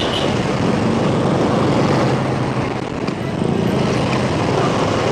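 Motorcycle engine running steadily while riding, under a loud, even rush of wind noise on the microphone.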